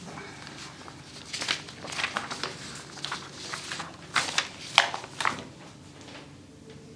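Loose sheets of paper rustling as they are handled and shuffled: a run of crisp rustles through the middle seconds, the sharpest a little before the end.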